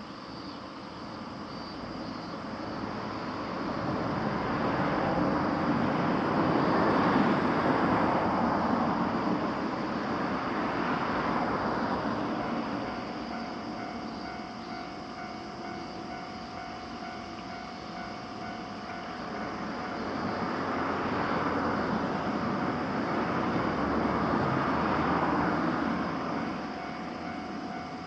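Japanese railway level-crossing warning bell starting about twelve seconds in and repeating steadily, over a rushing noise that swells and fades twice.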